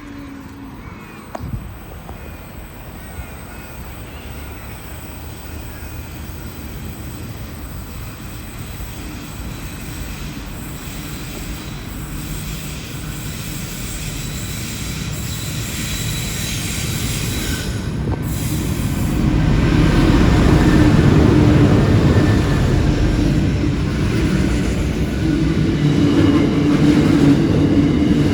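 Freight train approaching and passing through a station, growing steadily louder for about twenty seconds and then staying loud, with a low steady hum and a high wheel squeal.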